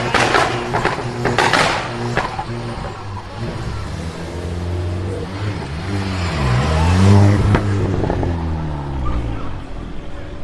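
Car engine revving with harsh exhaust crackles and pops over the first two seconds. Later the revs drop and climb again, with a single sharp crack about seven and a half seconds in.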